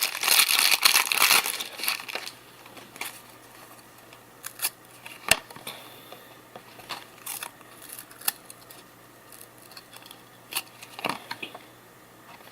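Trading-card pack wrapper crinkling and tearing for about the first two seconds, then scattered light clicks and taps of cards being handled.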